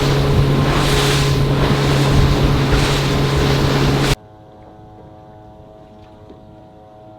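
Haines Hunter 680 boat's engine running steadily at speed through swell, with wind and water rushing over it. About four seconds in it cuts off abruptly to a much quieter steady hum.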